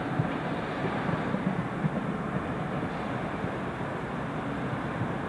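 Steady rumble of multiple-unit trains running on the station's platform lines, with no sharp sounds.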